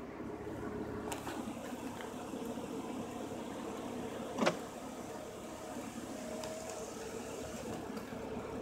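Mercedes-Benz C280 power window motor running the door glass, a steady hum, with a single sharp knock about halfway through.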